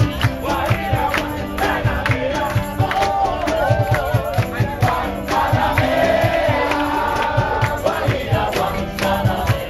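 Live band playing upbeat music with voices singing, and a crowd of people clapping along to the beat.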